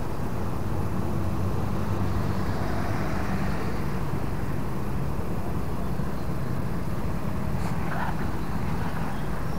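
Steady low rumble of road traffic, with the drone of a vehicle engine underneath.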